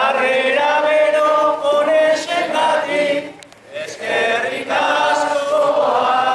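Unaccompanied singing of Basque improvised verse (bertso), sung in long held phrases, with a short pause for breath about three and a half seconds in.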